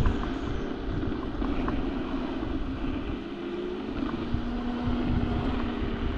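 Teverun Fighter Supreme Ultra electric scooter riding slowly over a bumpy path: wind buffets the microphone and the ride rumbles, with a steady low hum from the drive.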